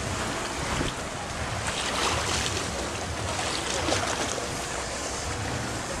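Shallow sea water washing against shoreline rocks, with wind noise on the microphone.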